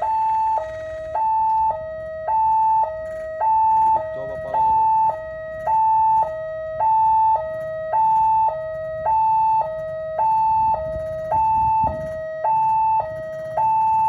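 Electronic warning siren of a newly installed railway level crossing, sounding its alarm while the barrier is down. It repeats a steady two-tone high–low pattern, switching tone about twice a second, with the higher tone the louder.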